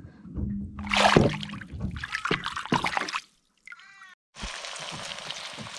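An Australian bass splashing and slapping in the water as it is released from the hand and swims off, loudest about a second in. From about four seconds in, the steady sizzle of eggs frying in a pan.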